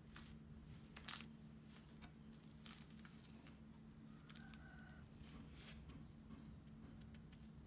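Near silence: faint low room hum with a few soft clicks and knocks from rough handmade clay pots being moved on a wooden table, the sharpest about a second in. A faint short chirp sounds a little past the middle.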